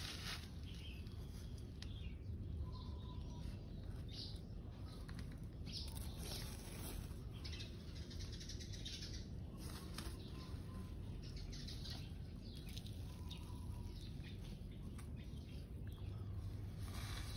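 Quiet outdoor background: a steady low rumble with soft scratchy rustles every second or two, and a few faint short bird chirps.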